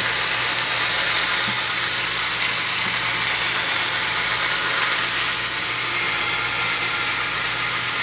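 Cordless drill/driver running at a steady speed, spinning a fan motor's rotor and shaft in its chuck while 100-grit metal sandpaper is pressed against the rusty rotor: a steady motor hum under the even hiss of the sandpaper scouring off rust.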